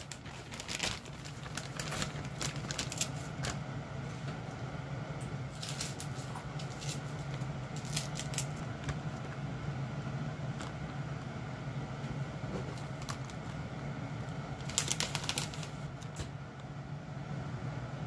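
Kitchen cooking sounds: light clicks and clatter of utensils in several short clusters over a steady low hum.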